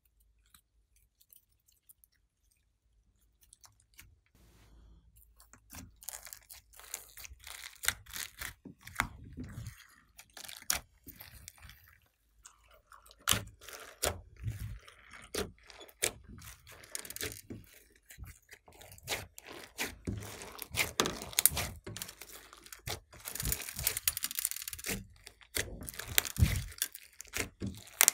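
Hands kneading and squeezing glossy slime mixed with clay and foam beads: sticky squishing with many small crunching crackles and pops. Quiet for the first few seconds, then the crackling grows busier and louder.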